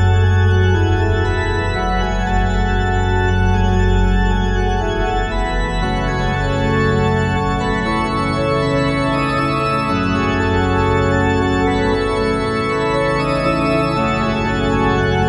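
Church organ playing loud sustained full chords over a deep bass, the chords shifting every few seconds.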